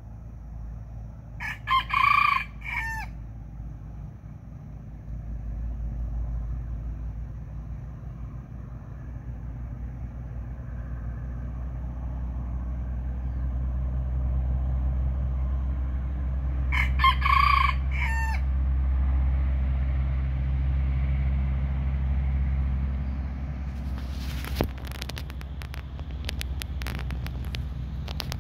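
Red junglefowl cockerel crowing twice, about fifteen seconds apart, over a steady low rumble. A burst of crackling rustle comes near the end.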